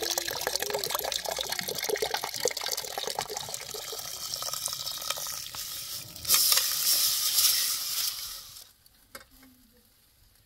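Water bubbling in a pot. About six seconds in, a louder stream of tap water splashes into a steel pot of beans, then stops near the end and leaves only a few faint knocks.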